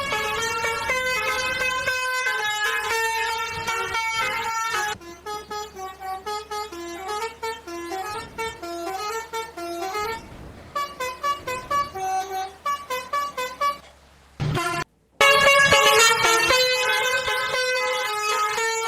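Basuri 'telolet' musical bus horn playing a tune of stepped notes: held notes at first, then a quieter run of quick short notes, then loud held notes again after a brief break with a thump.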